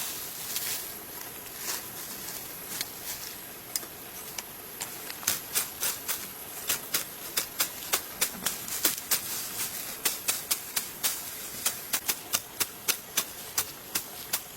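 A rapid series of sharp knocks, scattered at first and then coming steadily at about three a second from about five seconds in, over a steady high hiss.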